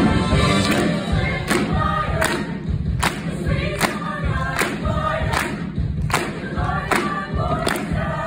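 A stage cast singing together in chorus over musical accompaniment, with a sharp, steady beat about every three-quarters of a second.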